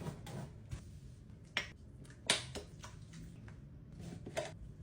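A few short, sharp clicks and taps, the loudest a little over two seconds in, over faint room noise.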